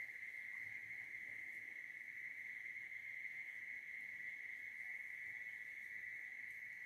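Steady, unbroken high-pitched chirring of night insects such as crickets, holding one pitch.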